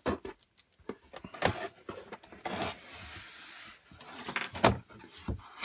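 Cardboard box flaps being pulled open and handled: scraping and rubbing of cardboard, with a stretch of sliding from about two to four seconds in and several light knocks.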